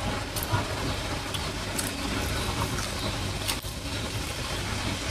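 Steady low background rumble and hum, like traffic or an idling engine, with a few light sharp clicks of eating utensils against a dish.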